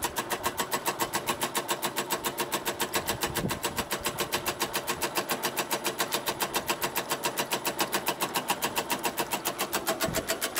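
High-pressure water pump running with a rapid, even pulsing beat of about seven strokes a second while it pumps water into a plastic bottle, building pressure in it.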